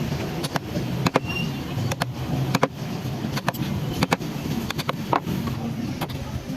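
Wood being carved by hand tools: irregular sharp knocks and taps, several a second, over a steady low hum.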